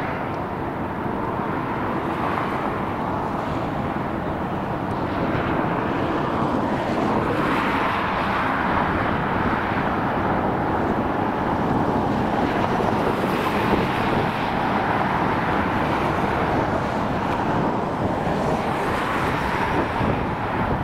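Airbus A380 on final approach, its four jet engines giving a steady rushing roar with a faint steady whine, slowly growing louder as the plane nears.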